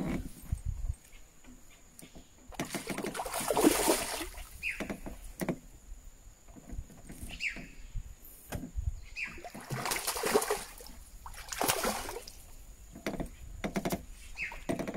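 Water splashing in several bursts a few seconds apart as a hooked fish thrashes at the surface, with a few short high squeaks between them.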